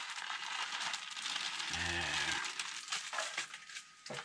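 Plastic zip-top bag crinkling as shredded cheese is shaken out of it into a frying pan, over a steady sizzle from the pan. A brief low hum comes about two seconds in, and a few light clicks near the end.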